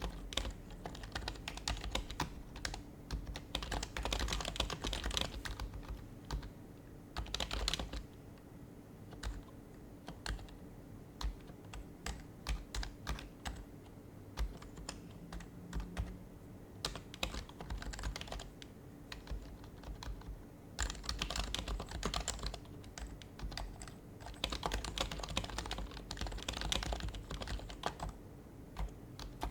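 Typing on an HHKB Professional HYBRID Type-S keyboard, its silenced Topre capacitive keys giving soft, muted clacks. The keystrokes come in quick runs with short pauses between them.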